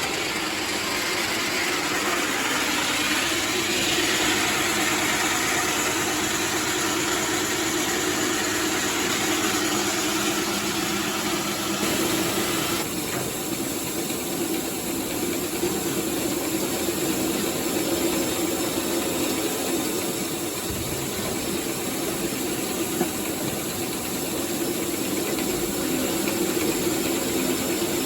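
An engine runs steadily under a continuous hissing rush as a grain auger moves wheat out of a hopper wagon. The hiss drops off abruptly about halfway through while the engine keeps running.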